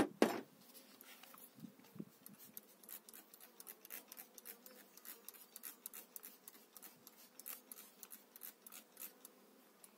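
Hand trigger spray bottle squirting repeatedly onto a frame of honeybees, short hissing sprays several a second, over a faint hum of bees. A louder knock of the wooden frame comes right at the start.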